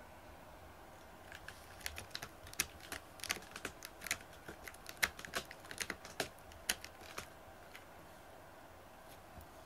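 A cat working at a corrugated cardboard cat scratcher. It makes an irregular run of crisp scratchy clicks that starts about a second in and stops about seven seconds in, with a few faint ones near the end.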